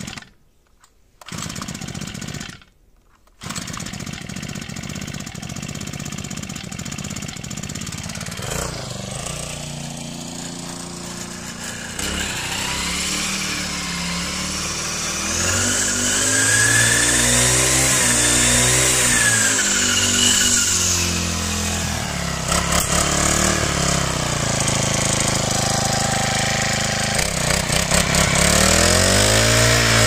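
Single-cylinder four-stroke GX35-type brush cutter engine pull-started: two short bursts from the starter pulls, then it catches about three seconds in and runs. From about twelve seconds it runs louder and is revved up and down repeatedly.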